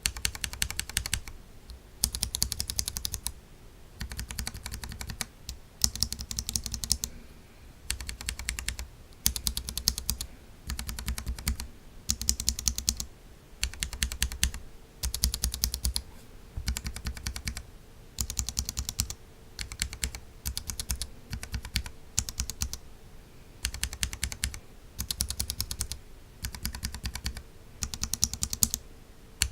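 Mechanical keyboard with tactile switches being typed on in repeated bursts of rapid keystrokes, each burst about a second long with short pauses between.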